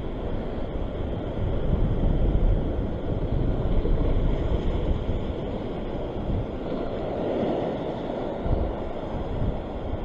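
Wind buffeting the microphone over ocean waves washing across a rock ledge, gustier in the first half, with a surge of surf wash about seven seconds in.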